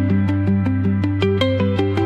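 Background music: a quick, even run of notes over a held bass note.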